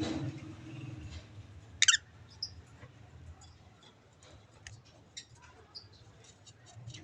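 Caged lovebirds: one loud, short chirp about two seconds in, then scattered faint high chirps and clicks. A low rumble fades away during the first second.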